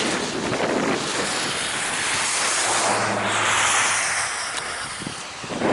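Car driving on a wet, slushy highway: steady tyre and road hiss with wind noise, swelling about three seconds in with a low hum as another vehicle passes.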